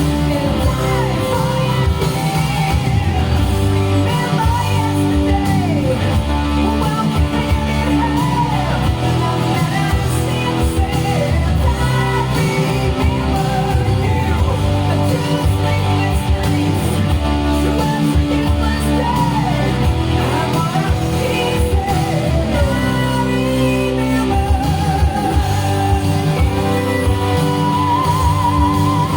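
Glam metal power ballad recording with electric guitar, bass, drums and singing. The lead line slides and wavers in pitch.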